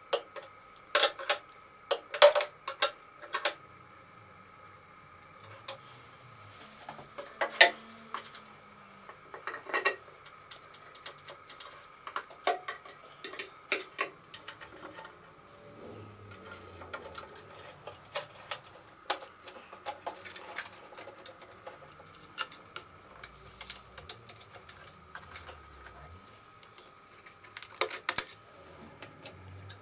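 Hand tools clicking, clinking and tapping against the metal parts of a vintage Vespa during assembly: irregular sharp clicks and knocks, coming in quick clusters in the first few seconds and again near the end, over a faint steady whine.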